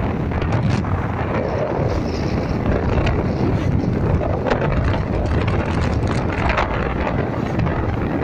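Wind buffeting the microphone on a moving motorcycle, a steady rushing noise with short gusts, over the motorcycle's engine running at road speed.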